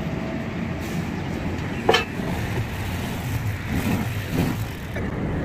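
Motorcycle loader's engine running steadily, with one sharp metallic clank from the steel beams about two seconds in.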